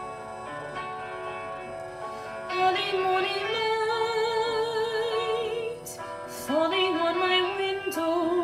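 Piano-style keyboard accompaniment playing alone, then a solo voice singing with vibrato over it from about two and a half seconds in, with a short breath break near the six-second mark.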